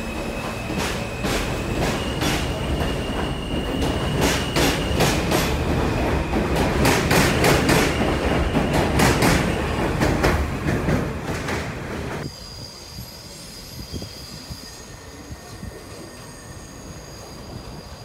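New York City Subway train of R160-type cars running along an elevated station, its wheels clattering over rail joints under a steady high whine, growing louder to a peak about eight seconds in. About twelve seconds in it cuts to a much quieter platform, where a faint high wheel squeal comes from a distant train.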